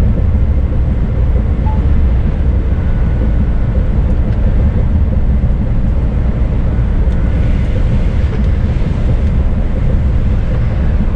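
Scania S500 truck cruising on a wet road, heard from inside the cab: a steady low drone of engine and tyres. A little more hiss comes in about seven seconds in.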